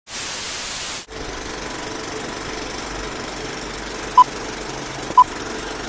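A burst of static-like hiss for about a second, then a steady electronic hum with short, high, single-pitch beeps once a second, starting about four seconds in, like a countdown.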